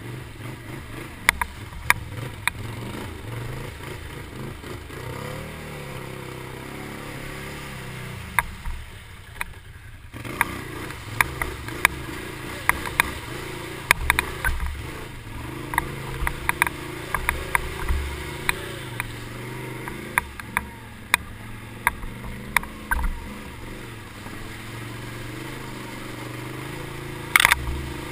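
Can-Am Renegade 800 ATV's V-twin engine running and revving as it drives through mud and water, easing off briefly about nine seconds in. Frequent sharp knocks and clatters sound over it, the loudest near the end.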